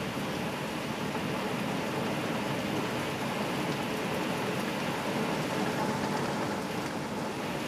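Heavy sudden downpour heard from inside a house: a dense, steady rush of rain.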